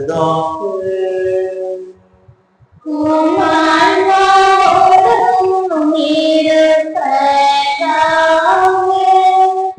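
The tail of a priest's chanted Mass greeting, then after a brief pause a group of voices singing the liturgical response in several held, slow phrases.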